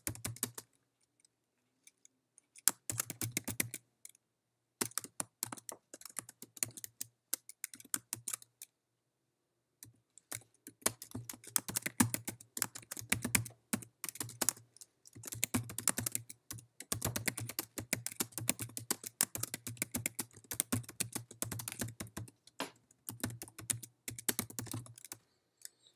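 Typing on a computer keyboard: quick runs of keystrokes in irregular bursts, with short pauses between them and a longer pause about a third of the way in.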